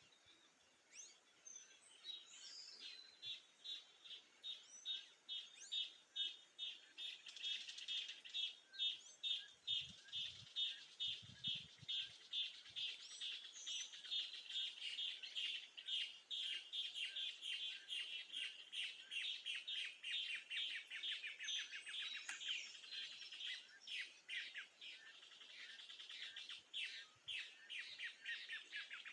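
Birds singing at daybreak: one bird repeats a rapid, even series of chirps, about two a second, while other birds call over it now and then.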